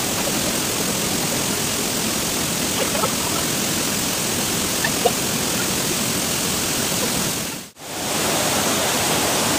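Waterfall pouring into a rocky pool, a steady, even rush of water. It cuts out for a moment near the end and comes back as a fast white-water stream rushing over rocks.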